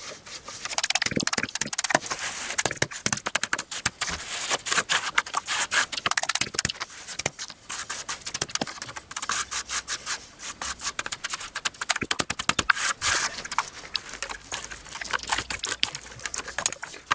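A metal trowel scraping and smoothing wet cement mortar in quick, repeated strokes.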